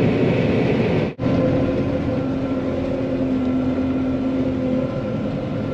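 John Deere 9500 combine running steadily, heard as a continuous machine drone with a steady hum. The sound breaks off for an instant about a second in.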